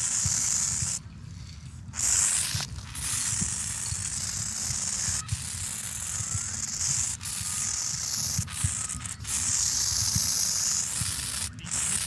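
Aerosol spray paint can hissing as paint is sprayed onto a wall, in long bursts broken by short pauses, one of them about a second long near the start.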